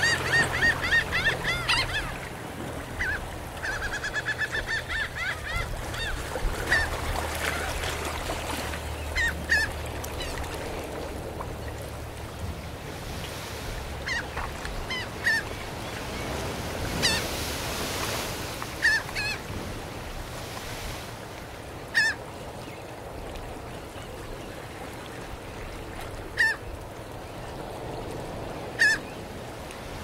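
Seagulls calling over gentle surf washing up a sandy shore. A fast run of gull calls opens, another comes about four seconds in, then single calls every few seconds over the steady wash of the waves.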